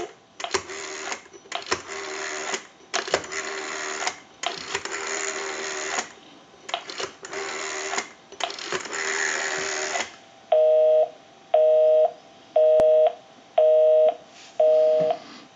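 Rotary dial of a North Electric Galion TP-6-A military telephone being dialed through about seven digits, each one a whirring, clicking return of the dial. The line then answers with a busy signal: five evenly spaced two-tone beeps about one a second, because the number called is in use.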